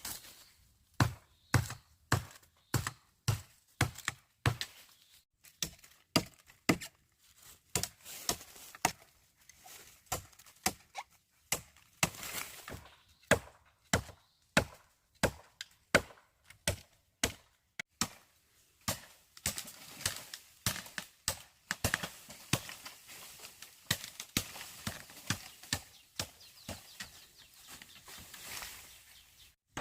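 Bamboo being chopped with a blade: a long series of sharp strikes, about one or two a second, with brief pauses between runs.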